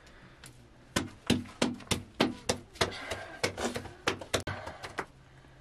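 Hands slapping and patting a ball of naan dough flat between the palms: a quick run of sharp slaps, about three or four a second, starting about a second in and stopping near the end.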